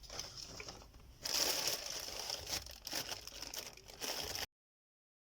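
Packaging rustling and crinkling as parts are handled and unwrapped from a parcel. It gets louder a little over a second in, then cuts off abruptly to dead silence about four and a half seconds in.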